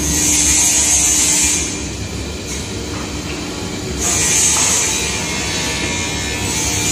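Holytek lock and hinge milling machine running, its motor humming steadily, with three bursts of hissing cutting noise as the bit mills into wood: near the start, about four seconds in, and near the end.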